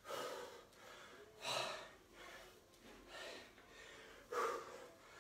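A man breathing hard through the effort of lifting, a short forceful breath about every one and a half seconds in rhythm with his reps, the strongest a little after four seconds in.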